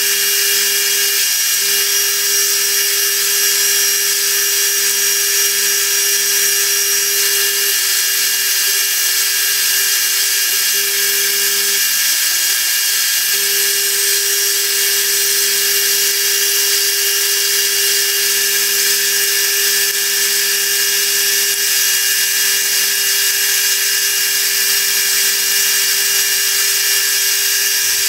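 Small milling machine running steadily, its end mill cutting a screwdriver slot across a knurled screw head, a constant hum with a hiss above it whose pitch shifts slightly now and then.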